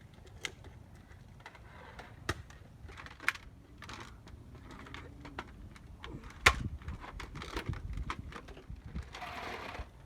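Scattered sharp clicks and knocks at irregular intervals, the loudest about six and a half seconds in, with a short rustling hiss near the end.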